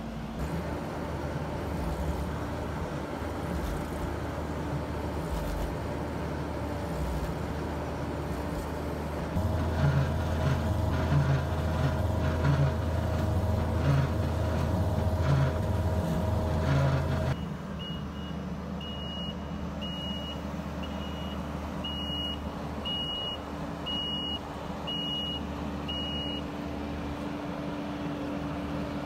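Kubota SVL75-2 compact track loader's diesel engine running while its hydraulic auger bores into red clay. The engine gets louder and works harder for several seconds mid-way as the auger drills down. Later the machine's backup alarm beeps about once a second for several seconds.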